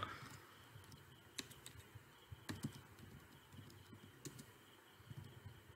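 Faint typing on a computer keyboard: a handful of scattered keystroke clicks.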